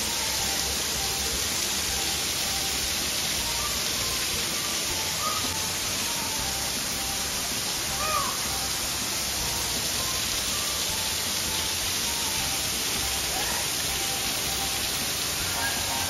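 Steady rushing hiss like falling water, with faint short chirping calls now and then; one call about eight seconds in is a little louder.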